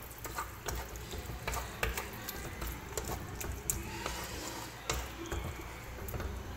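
Wooden spatula stirring and scraping a thick chicken-and-flour white-sauce batter around a hot non-stick wok, in irregular soft scrapes and knocks, with a faint sizzle from the pan. The batter is being cooked down until it dries.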